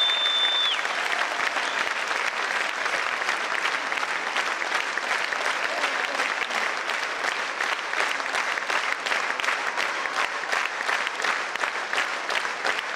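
Theatre audience applauding steadily, a dense wash of many hands clapping, with a brief high whistle at the very start.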